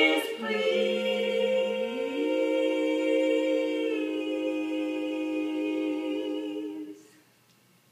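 Female barbershop quartet singing a cappella, four voices holding one long chord. About two seconds in the lowest voice slides up to a new note, and the chord is released near the end.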